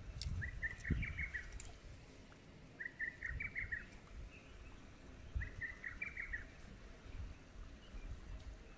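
A songbird singing the same short phrase of quick notes three times, about every two and a half seconds, over a low rumble.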